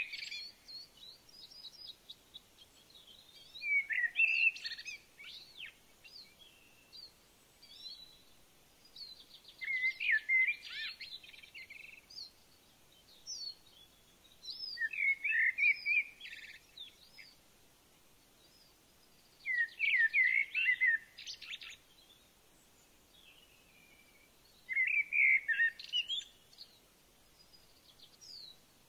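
A songbird singing the same short phrase over and over, about every five seconds. Each phrase lasts a second or two: a quick high trill followed by rapid warbling notes.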